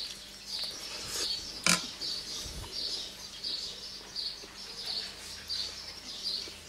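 A small bird chirping over and over in an even rhythm, about one and a half short high chirps a second. A single sharp click sounds just under two seconds in.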